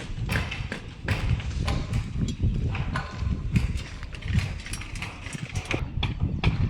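Irregular metallic clicks and knocks on a construction site, several a second, over a low rumble.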